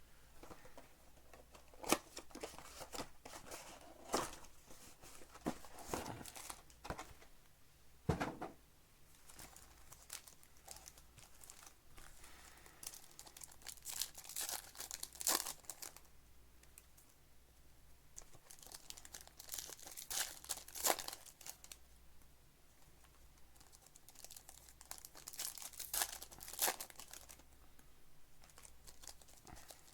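Plastic wrapping on a trading-card mega box and its packs being torn open and crinkled by hand, in scattered bursts of crackling with quieter gaps, and a single knock about eight seconds in.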